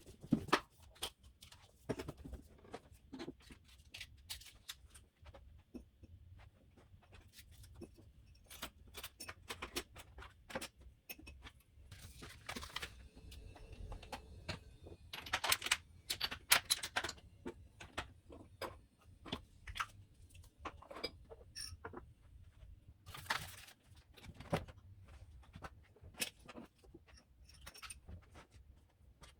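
Scattered small clicks, knocks and clinks of household items being handled and put down during cleaning, with a few short swishing noises.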